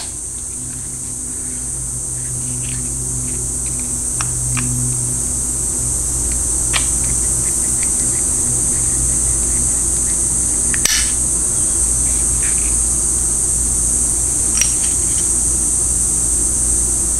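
Steady low hum and high-pitched hiss of workshop background noise, growing a little louder over the first few seconds, with a few light clicks of small parts and tools being handled.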